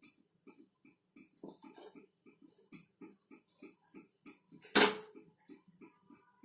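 A spoon knocks once, sharply, against the pan of heating water about three-quarters of the way through, as the ground kashayam powder is added. Underneath, a faint, even ticking runs at about three to four beats a second.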